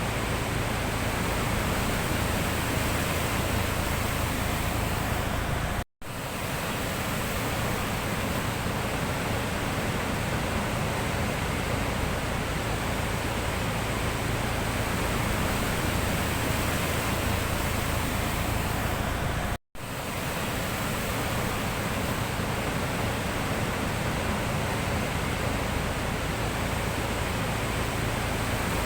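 Sea surf making a steady, even rushing noise. It cuts out abruptly twice, for a split second each, about six seconds in and again about two-thirds of the way through.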